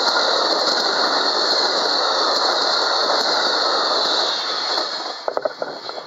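Amtrak passenger cars rolling past at close range, a steady loud rush and rumble of steel wheels on rail. About four seconds in the sound falls away as the last car passes, leaving a few scattered knocks near the end.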